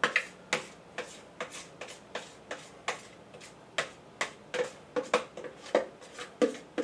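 A spoon scraping and knocking against the inside of a plastic mixing bowl as cake batter is scooped out into a pan: a run of irregular sharp clicks, two or three a second.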